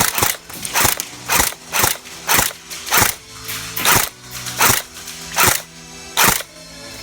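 Airsoft gun firing single shots, about a dozen sharp cracks half a second to under a second apart, over quiet background music.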